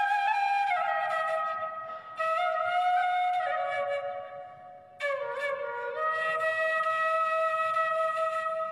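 Bamboo flute (bansuri) playing a slow melody of long held notes, in three phrases with short breaks about two seconds in and again around four and a half seconds.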